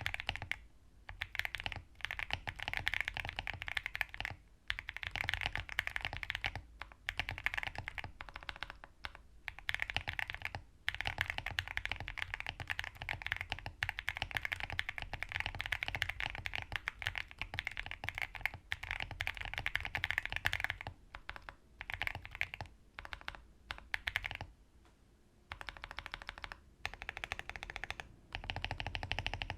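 Typing on a QK65 mechanical keyboard with Akko Ocean Blue switches, PE foam and Durock V2 stabilizers. Fast runs of keystrokes with several brief pauses.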